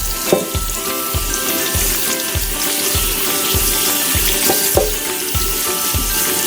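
Food sizzling as it fries, a steady dense hiss, over background music with a steady beat.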